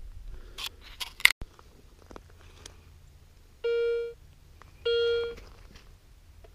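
Garrett Ace 250 metal detector giving two short beeps of the same pitch, each about half a second long and about a second apart, as the coil sweeps the shallows. Before them come a few sharp clicks and knocks from gear being handled, the loudest a single sharp knock.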